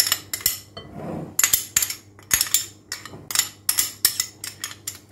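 Metal spoon tapping and scraping against a small ceramic dish as grated garlic is knocked off into a glass bowl: a quick, irregular series of sharp clinks.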